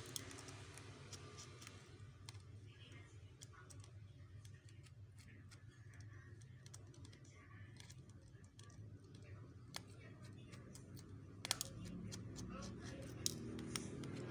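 Faint, scattered small clicks and ticks of a precision screwdriver working the tiny screws and plastic inner frame of an Oppo A3s phone, with a few louder clicks near the end, over a low steady hum.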